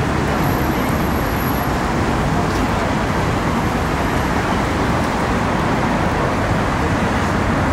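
Steady city traffic noise, an even wash of sound with no single vehicle or event standing out.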